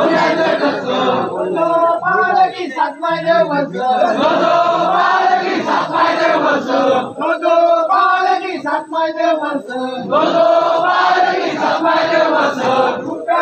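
A large crowd of men chanting and shouting together in unison, loud and continuous, in long drawn-out phrases broken by shorter choppy shouts.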